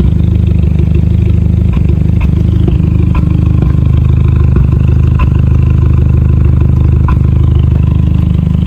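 MK5 VW Golf GTI's 2.0-litre turbocharged four-cylinder idling steadily on a cold start, heard from the exhaust end, with faint irregular ticks through the idle. A little misfiring remains on cylinders 1, 2 and 3 after a new PCV valve, though the engine is no longer shaking.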